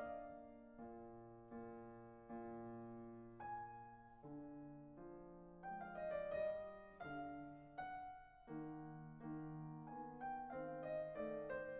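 Slow, soft solo piano music: single notes and chords struck about once a second, each left to fade, coming a little quicker near the end.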